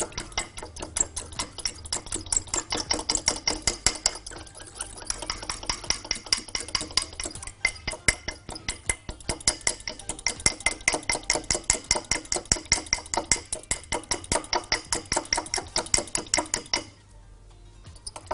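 A metal fork whisking egg wash in a glass measuring jug, clinking rapidly against the glass at about five strokes a second, then stopping about seventeen seconds in.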